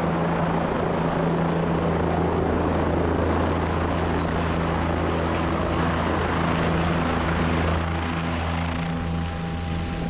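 Helicopter in flight, a steady drone of rotor and turbine with a strong low hum. About eight seconds in the level dips slightly and a set of higher steady tones comes in.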